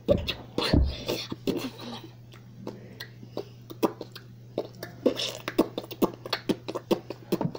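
A child making beatbox-style mouth sounds: irregular clicks and pops with a few short breathy bursts, over a faint steady low hum.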